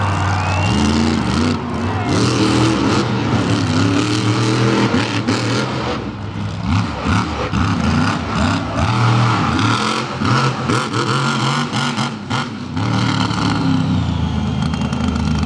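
Bounty Hunter monster truck's engine revving hard and repeatedly, its pitch rising and falling as the throttle is blipped and held. A few sharp cracks come in the second half.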